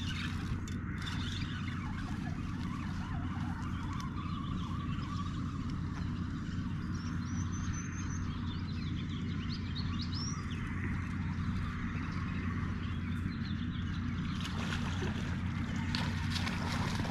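A steady low rumble runs throughout, with a few short, high bird chirps about seven to ten seconds in.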